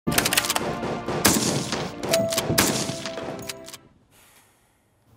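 Film soundtrack of rapid gunfire and impacts over music, the shots thickest in the first half second and recurring in clusters before it all fades out a little under four seconds in.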